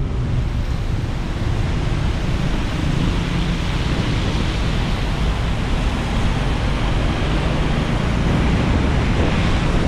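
Steady hiss of heavy rain and tyre spray on a wet road over a car's low driving rumble. The hiss starts suddenly and fades away just after it.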